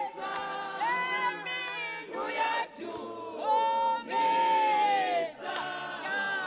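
A group of voices singing together, with long held notes between shorter phrases.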